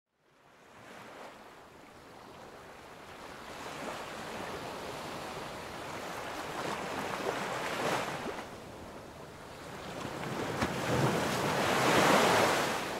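Sea waves surging and washing on a shore. The sound fades in from silence and swells twice, about eight seconds in and again near the end.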